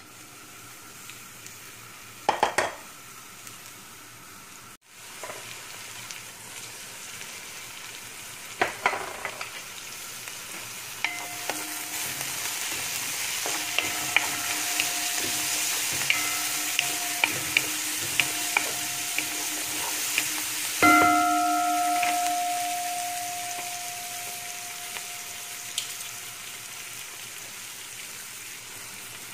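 Sliced onions sizzling in hot oil in a large metal pot, stirred and scraped with a wooden spatula, with sharp knocks of the spatula against the pot. The sizzling grows stronger about a third of the way in and eases off toward the end.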